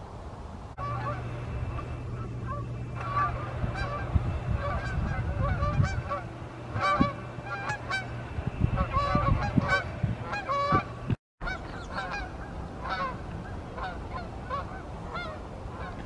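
Canada geese honking in flight, many overlapping calls from a passing flock. A low steady hum runs under the first half, and the sound cuts out for a moment a little past the middle.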